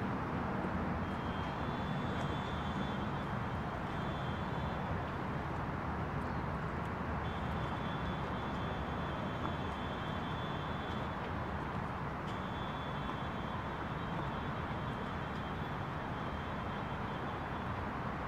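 Steady outdoor ambience of wind and lapping harbor water under a low, even rumble. A thin, high steady tone comes and goes three times.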